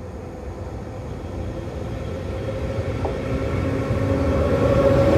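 ČD Cargo class 182 electric locomotive running light, approaching and passing close by and growing steadily louder. Its wheels rumble on the rails under a steady hum, with a single short click about three seconds in.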